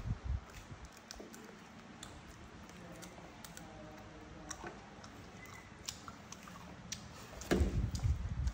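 Monkeys chewing fresh lotus seeds pulled from the green seed pods, with small crunches and clicks. Near the end there are louder bumps and rustling.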